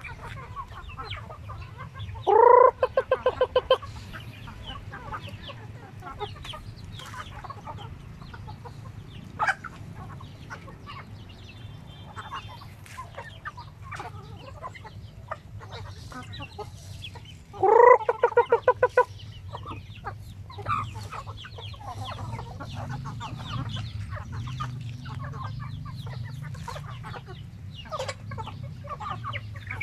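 A flock of hens and roosters clucking as they feed, with many light ticks of pecking on the ground. Twice, one bird gives a loud call that rises and breaks into a quick run of pulses: once a few seconds in and again a little past halfway.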